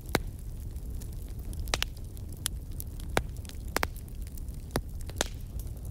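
Crackling fire: a steady low rumble with about ten irregular sharp pops and snaps.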